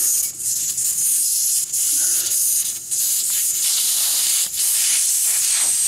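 Air hissing out of a tire's valve stem as the Schrader valve core is unscrewed to deflate the tire: a loud, steady high-pitched hiss with a few brief dips.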